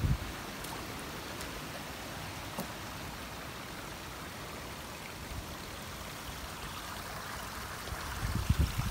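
Water trickling steadily through and out below a stick-built beaver dam, a soft even rush. About eight seconds in, low rumbling buffets of wind on the microphone come in over it.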